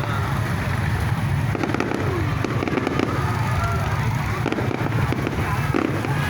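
Aerial fireworks popping and crackling in quick, irregular succession over a steady low rumble.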